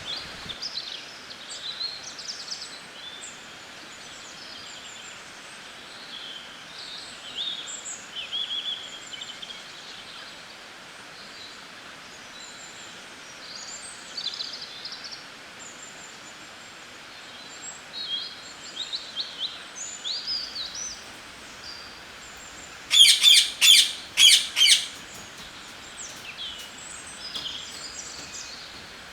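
Several songbirds chirping and singing in short, high phrases over a steady background hiss. About three-quarters of the way through, a closer bird gives a loud burst of rapid, harsh notes.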